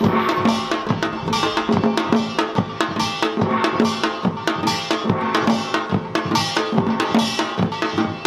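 Korean samdo samulnori percussion ensemble playing a fast, dense rhythm: kkwaenggwari small gongs clanging over janggu hourglass drums, with the large jing gong ringing underneath.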